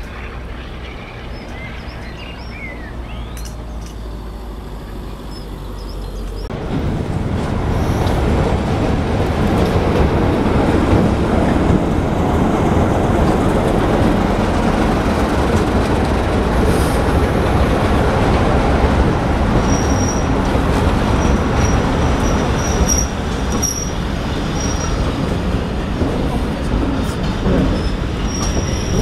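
A diesel-hauled passenger train: first heard at a distance, with birds singing, then suddenly close by as the locomotive's engine runs past and its coaches roll through the platform. A thin, high wheel squeal comes and goes over the steady rumble of the coaches from about two-thirds of the way in.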